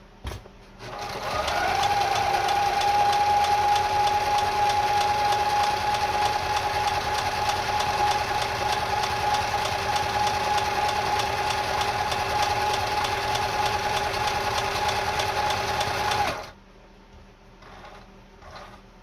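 Kenmore 158.10500 sewing machine sewing a zigzag stretch stitch at steady speed. Its motor whine spins up about a second in, holds an even pitch, and stops abruptly near the end.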